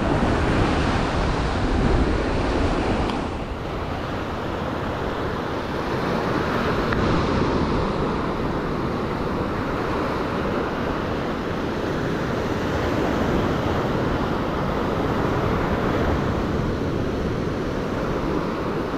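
Steady wash of surf breaking on a sandy beach, with wind noise on the microphone.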